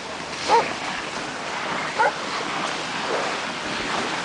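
Avalanche rescue dog barking twice, short barks about half a second and two seconds in, its alert that it has found a buried person. Steady wind noise on the microphone underneath.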